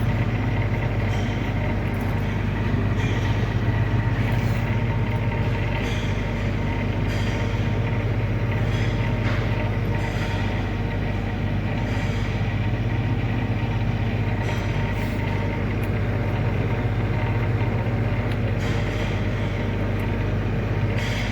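Refrigeration condensing unit running steadily, compressor and condenser fan giving a constant hum. It has been brought back to life by a new motor contactor and is cooling, the temperature starting to drop.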